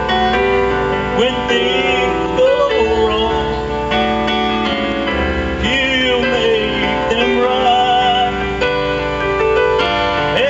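A man singing a song into a microphone, accompanied on electronic keyboard, both amplified through a PA system. The voice holds notes with a wavering vibrato over sustained keyboard chords.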